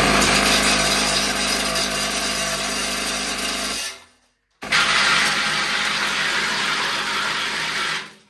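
Airsoft electric rifle with a Gate Titan 2 and Pulsar motor in a double-bell gearbox, firing two long full-auto bursts at about 100 rounds a second. Each burst lasts about three and a half seconds, with a short break between them.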